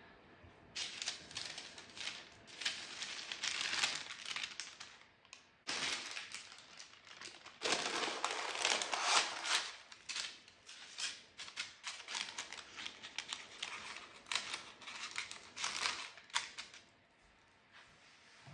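Baking parchment rustling and crinkling in repeated bursts as a loaf of raw dough on it is lifted and lowered into a pot, and the paper is pressed against the pot's sides.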